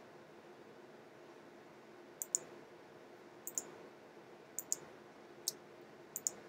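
Computer mouse button clicks, mostly in quick pairs, about once a second from about two seconds in, over a faint steady hum.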